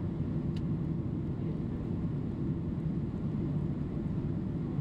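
Steady low roar inside the cabin of a Boeing 767-300 jetliner descending on approach, the blended noise of its jet engines and the airflow over the fuselage. A brief faint click about half a second in.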